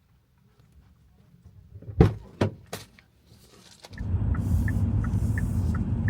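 Three sharp knocks inside a car, then a steady low motor hum starting about four seconds in, with a faint regular ticking above it.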